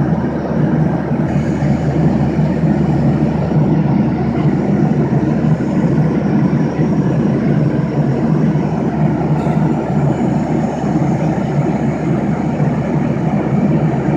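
Jet airliner cabin noise in flight at altitude: the steady, low-pitched sound of the jet engines and airflow heard through the fuselage from a window seat.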